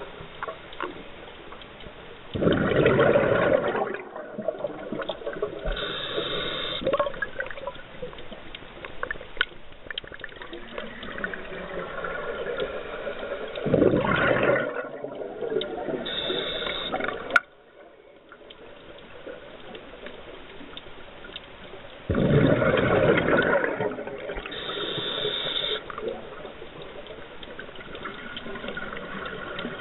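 A scuba diver's regulator breathing underwater: three loud gushes of exhaled bubbles about nine seconds apart, each followed a few seconds later by a thin hiss of inhalation through the regulator. A single sharp click sounds a little past halfway.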